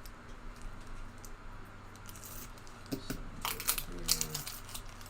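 Foil trading-card pack wrappers and cards being handled: crinkling and rustling, with sharper bursts of crinkle about two seconds in and again around three and a half seconds.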